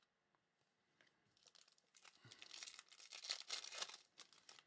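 Foil wrapper of a trading-card pack crinkling and tearing as it is ripped open by hand. The crackling starts about a second and a half in and stops just before the end.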